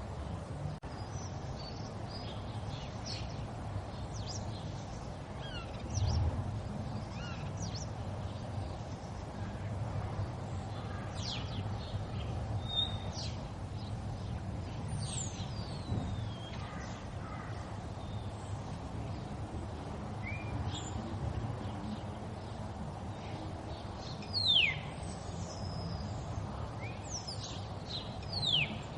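River water flowing in a steady rush, with small birds calling over it in short high chirps, several of them falling sharply in pitch.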